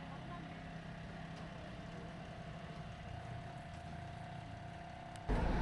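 Tourist road train's engine idling steadily, a low hum with a thin steady whine over it. Near the end the sound cuts abruptly to a much louder outdoor rumble.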